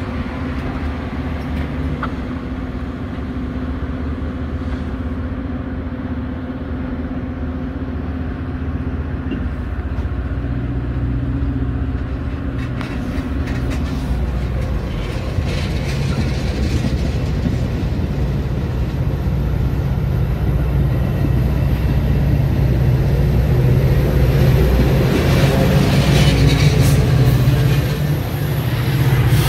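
Metra commuter train pulling out: the bilevel coaches roll past with wheels clicking over rail joints. The diesel locomotive's engine hum grows steadily louder as it comes by near the end.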